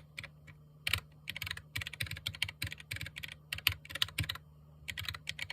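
Typing on a Keychron K4 mechanical keyboard: runs of quick key clacks, pausing briefly about a second in and again near the end.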